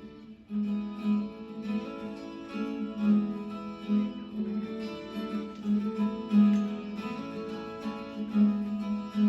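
Background music: acoustic guitar played with plucked and strummed notes in a steady rhythm, starting about half a second in.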